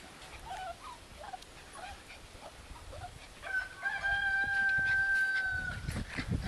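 A rooster crowing once: a single long, held call of about two seconds, starting about three and a half seconds in. A few faint short squeaks come before it.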